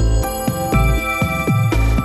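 Background instrumental music: pitched notes changing every few tenths of a second over a steady bass.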